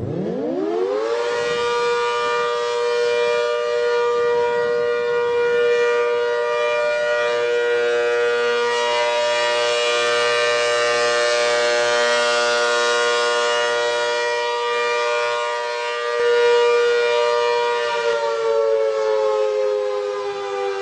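A siren winding up. It rises quickly in pitch over about a second, holds a steady chord of two tones, and begins to wind down near the end.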